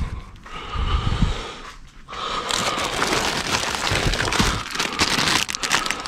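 Plastic produce bags and packaging crinkling and rustling as bagged produce is rummaged through and handled, with a low bump about a second in.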